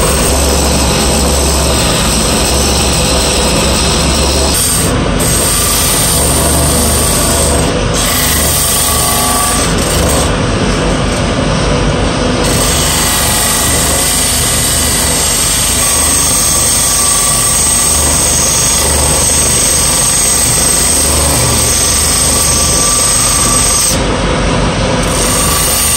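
Wood lathe running while a hand-held turning tool cuts a spinning wooden blank: a steady scraping hiss over the motor's hum. The high hiss drops away briefly a few times.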